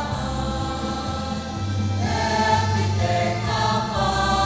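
Student choir singing together in harmony, holding long notes, with a change to new notes about two seconds in.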